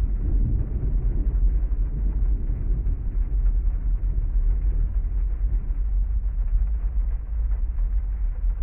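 Heavy rain on a parked car, heard muffled from inside the cabin as a steady low rumble with no separate drops or claps standing out.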